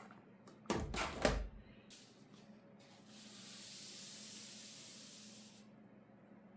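Packaging being handled: a short burst of clattering knocks about a second in, then a steady, high hissing rustle lasting about two and a half seconds.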